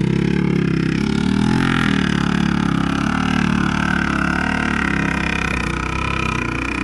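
Quad bike engine running under load as it climbs a steep, rough slope, its low note rising and falling as the throttle works.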